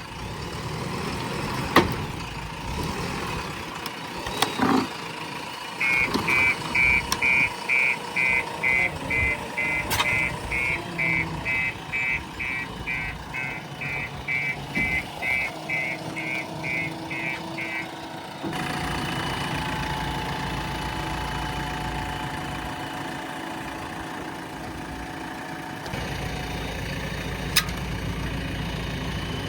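Diesel engine of a JCB 3DX Plus backhoe loader running. A reversing alarm beeps steadily, about two beeps a second, from about six seconds in until near eighteen seconds. After the beeping stops, the engine runs on steadily.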